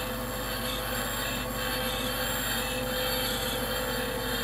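Bandsaw running with its narrow blade cutting through a wooden board: a steady motor hum under the continuous rasp of the cut.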